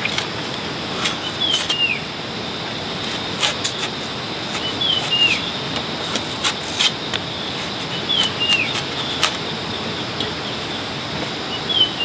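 A bird repeating a short two-note whistled call that drops in pitch, about every three to four seconds, over a steady rustling hiss. Scattered sharp clicks and snaps come at irregular moments.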